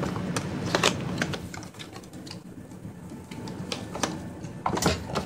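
A cardboard product box being handled and opened: irregular clicks, taps and rustles of the packaging, with a cluster of sharper clicks near the end as the pouch is pulled out.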